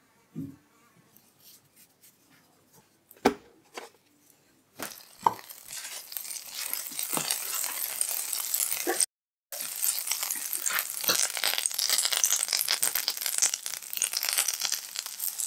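Butter sizzling and crackling in a hot frying pan, with salmon fillets being laid in to fry near the end. The sizzle starts about five seconds in and cuts out for a moment midway. Before it there are only a few soft taps and one sharp knock.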